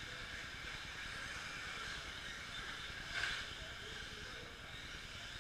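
Electric 2WD short course RC trucks racing: a steady hiss of motor whine and tyres on the dirt, with a brief louder burst about three seconds in.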